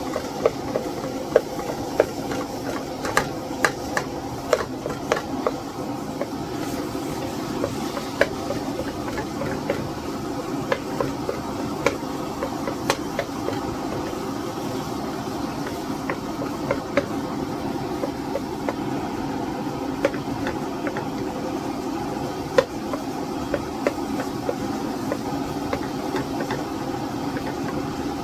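Ground meat sizzling as it browns in a frying pan: a steady hiss with many sharp pops and clicks, more frequent in the first few seconds.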